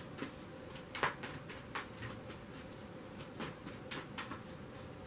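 Tarot cards being handled and shuffled by hand: soft, irregular flicks and taps of the card stock, the clearest about a second in.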